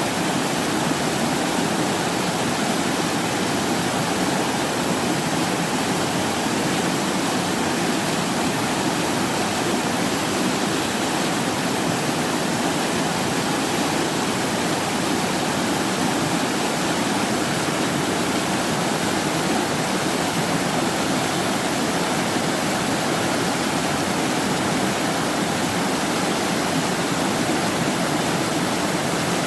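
Mountain stream water rushing over rocks: a steady, unbroken rush of water.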